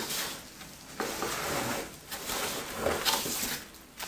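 Plastic packing wrap crinkling and rustling as wrapped items are handled, in a few bursts of about a second each.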